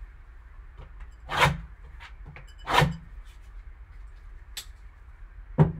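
A knife slitting the plastic shrink wrap on a sealed trading-card box: two cuts about a second and a half apart, each swelling and fading within a fraction of a second, then two sharp clicks near the end.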